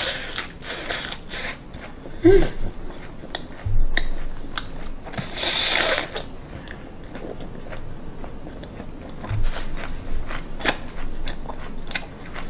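Close-up chewing of a mouthful of raw fish wrapped in lettuce: crisp crunching and wet mouth clicks, with a short hum about two seconds in and a longer run of crunching around the middle.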